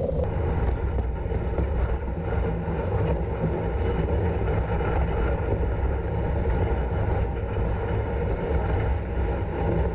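Steady rumbling noise of a moving dog sled on a snowy trail, with wind buffeting the microphone of a camera riding on the sled and a few faint ticks.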